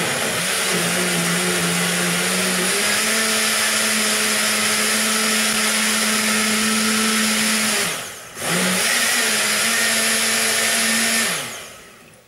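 Countertop blender running on a strawberry, banana and almond smoothie. Its motor note steps up in pitch a few seconds in, cuts out briefly about eight seconds in, starts again, then winds down near the end.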